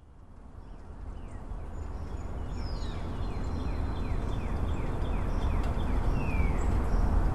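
Outdoor ambience fading in: a steady low rumble under a bird repeating short falling chirps, about three a second, with a couple of longer falling whistles.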